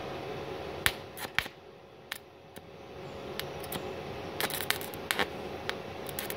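A 2.6 mm stick-welding electrode is tapped and scratched on a steel plate to strike an arc from a MultiPro MIG-MMA/TIG 160 inverter welder in MMA mode. It gives scattered sharp crackling clicks, one group about a second in and another around four to five seconds in, over the machine's steady hum. The arc does not hold because the welding current is set too low for the 2.6 mm rod.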